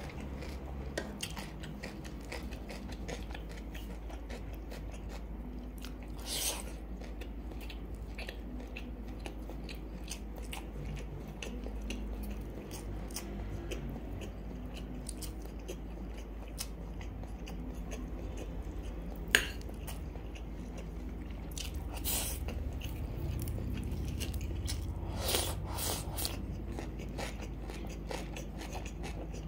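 Close-miked mouth sounds of a person eating black bean sauce instant noodles, fried egg and grilled pork sausage: steady chewing and biting with small wet clicks, and a few louder crunchy bites.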